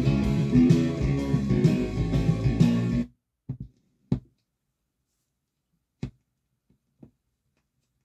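Guitar music playing from a vinyl record on a Thorens TD125 Mk II turntable, cutting off suddenly about three seconds in as the tonearm is lifted. A few soft thumps and clicks follow as the stylus is set down in the lead-out groove.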